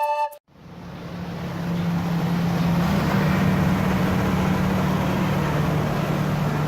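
Wildlife Express Train running: a steady rumble with a low hum that shifts slightly in pitch midway, fading in after a short gap.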